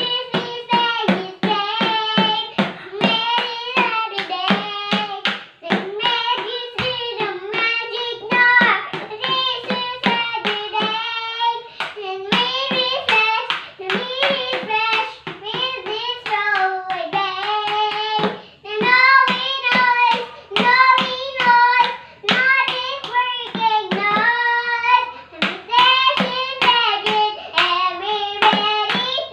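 A young child singing a song while beating a makeshift drum set of bedsheet-covered objects and a plastic tub with a stick and her hands. The hits come at a steady pace under the singing.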